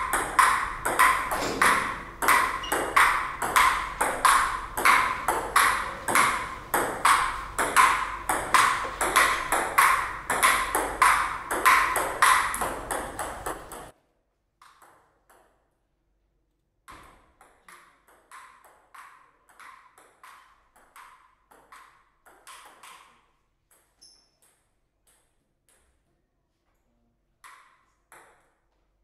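Table tennis ball clicking sharply off the rackets and table in a fast rally, about three to four hits a second. The rally stops abruptly about halfway through, and fainter runs of ball clicks follow later.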